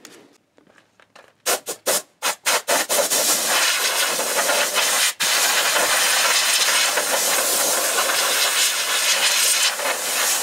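Compressed air hissing from a hand-held air gun on an air hose: a few short blasts about a second and a half in, then a steady hiss with one brief break.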